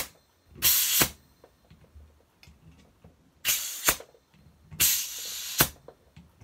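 Compressed air hissing in three short bursts from a shop air hose's chuck pressed onto a Schrader valve fitted to a WD-40 aerosol can, repressurizing the can with about 90 psi of air.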